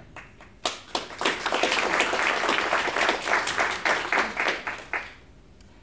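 Audience applauding. A few scattered claps about half a second in swell into full applause, which dies away about five seconds in.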